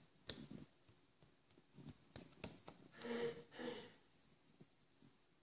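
Homemade slime being squeezed and stretched by hand: a few soft clicks and pops, then two short squelching sounds about three seconds in.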